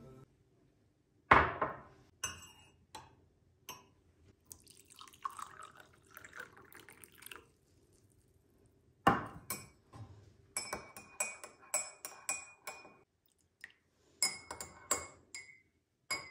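A sharp knock on the counter about a second in, then hot water poured from a stainless steel pot into a glass mug. After a second knock, a metal spoon stirs honey water in the glass, clinking quickly against it with a ringing tone, in two runs.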